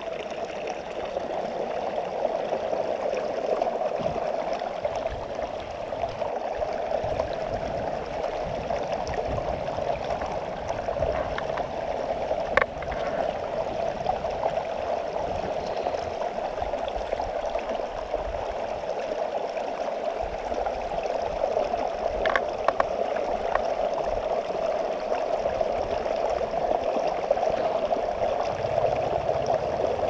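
River water rushing steadily over rocks, a constant even wash, with a few sharp clicks: one about twelve seconds in and a couple more about twenty-two seconds in.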